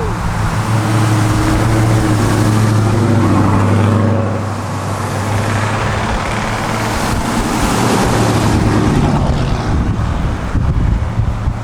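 Motor vehicle engine running, a steady low hum for the first four seconds or so, then wavering in pitch, over a haze of outdoor road and wind noise.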